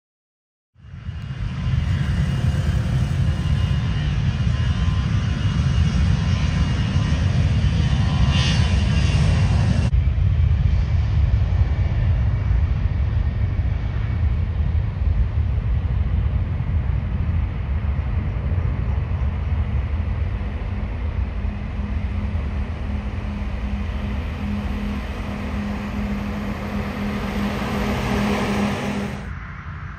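Loud deep rumble of a jet airliner's engines, starting suddenly after a moment of silence. The higher hiss drops away abruptly about ten seconds in, and the sound falls off suddenly shortly before the end.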